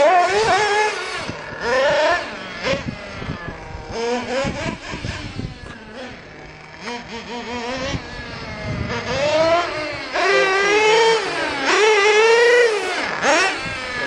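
Small two-stroke nitro engine of an RC buggy revving as it drives, a high whine rising and falling in pitch over and over, loudest near the end.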